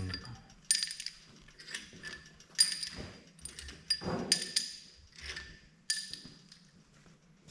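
Steel hand tools and bolts clinking against the cast housing of a Komatsu PC200-6 excavator swing box as it is unbolted: several sharp metallic clinks, each ringing briefly, at irregular intervals.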